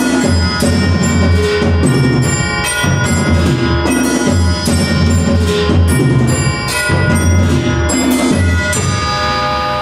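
Percussion quartet playing the closing bars of the piece: quick rhythmic strokes over pitched percussion and a steady low beat, ending about nine seconds in on a held final chord that rings on and fades.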